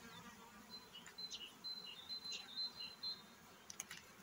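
Faint hum of honeybees over an open beehive, with a thin high tone and short chirps through the middle and a couple of light clicks near the end.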